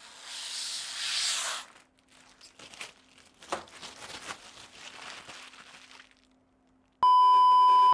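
Plastic wrapping crinkling and rustling, loudest in the first couple of seconds, then fainter crackles and small clicks. Near the end comes one loud, steady electronic beep just under a second long.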